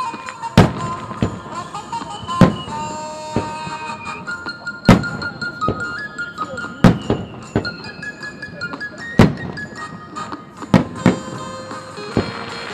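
Fireworks shells bursting over a music track: about a dozen sharp bangs at uneven intervals, some in quick pairs, over steady melodic music.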